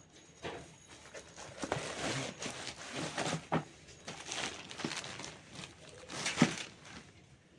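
A new fan's packaging being handled and opened: irregular rustling, scraping and knocks, the loudest knock a little past six seconds in.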